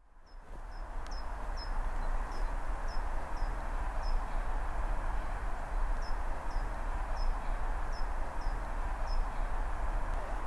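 A small bird calling repeatedly, short high chirps about two a second with a pause midway, over a steady low outdoor rumble and hiss. The sound fades in over the first second.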